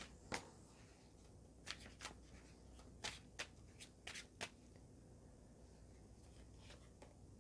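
Faint, scattered flicks and taps of an oracle card deck being shuffled by hand, clustered about halfway through.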